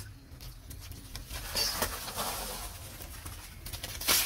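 Baby macaques scuffling and tumbling on sandy ground: rustling and patter, with a brief high squeak about one and a half seconds in and a sharp, loud rustle near the end.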